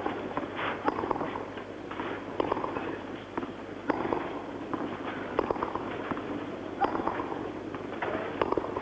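Tennis rally on clay: sharp racket-on-ball strikes about every one and a half seconds, alternating between the two baseline players, with softer ball bounces in between.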